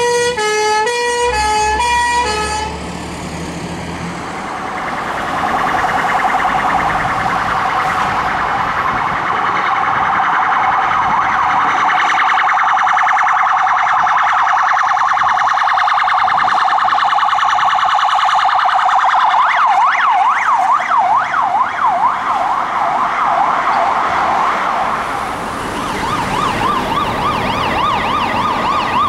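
Emergency-vehicle sirens in succession. A fire truck's siren alternates between two notes for the first couple of seconds. Then a police car's siren wails from about four seconds in and switches to a fast yelp about twenty seconds in, and near the end a fire engine's siren warbles quickly.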